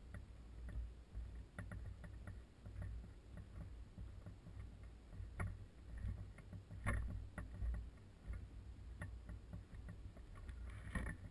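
Water lapping against a small fishing boat on a lake, over a steady low rumble, with scattered light knocks and clicks at irregular moments.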